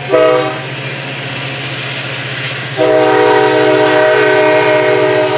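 Coaster diesel locomotive's multi-tone air horn sounding a short blast, then a long blast starting nearly three seconds in, over the steady low rumble of the locomotive and its passenger cars rolling past.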